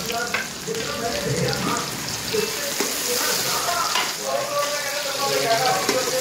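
Sliced onions sizzling in hot oil in a pressure cooker, stirred with a wooden spoon.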